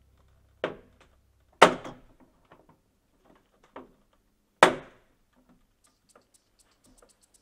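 Plastic snap joints of a Daikin FTXA air conditioner's exhaust finger guard clicking free as a small screwdriver pries them apart. There are two sharp snaps about three seconds apart, with a few lighter clicks around them.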